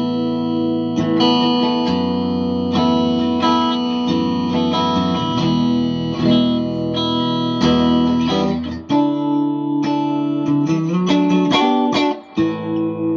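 Three-pickup Les Paul Custom electric guitar played through an amplifier. Held chords are struck about once a second, then quicker changing notes and short runs come in the last few seconds.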